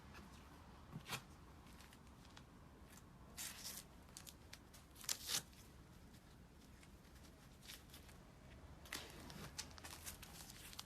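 Faint, scattered rustles and clicks a second or more apart over quiet room tone, with a slightly louder double rustle about five seconds in.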